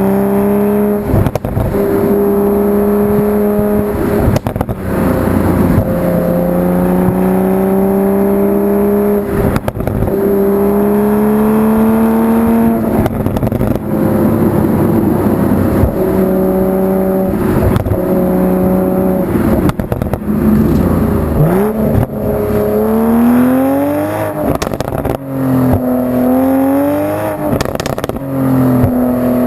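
2020 Toyota GR Supra's engine and stock exhaust under hard acceleration. The engine note climbs steadily and breaks off about every three to four seconds as it shifts up, with sharp crackles and pops at the breaks. Near the end, several quicker climbs and drops in revs.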